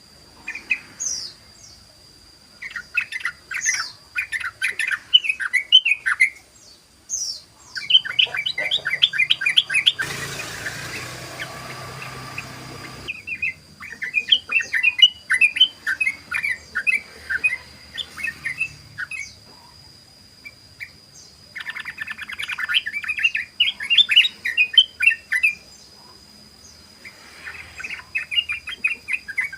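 Yellow-vented bulbul (trucukan) singing in rapid, run-on chattering bursts (ngeropel), each one to three seconds long with short pauses between. A hiss breaks in for about three seconds near the middle, and a thin, steady high tone runs underneath.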